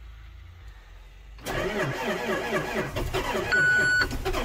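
The 8.7-litre Iveco diesel of a New Holland T8.330 tractor being cranked over by its starter, beginning about a second and a half in. It turns over in an even rhythm without firing: a cold start at minus 10 with no block heater, and the starter is running off a jump-start booster pack because the batteries are dead. A short, steady high beep sounds over the cranking near the end.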